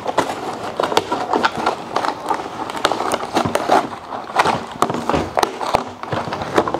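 A slime kit's cardboard packaging being cut and pulled open with a knife: irregular scraping, ripping and clicking.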